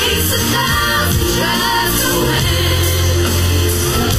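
Pop song playing, a sung lead vocal over a steady beat and a heavy bass line.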